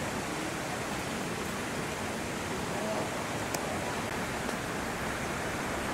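Steady outdoor background noise with faint, indistinct voices in it, and one small click about three and a half seconds in.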